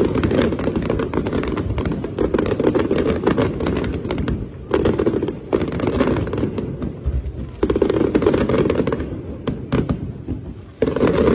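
Aerial fireworks display: rapid salvos of shell bursts and crackle, coming in waves that surge suddenly every two to three seconds.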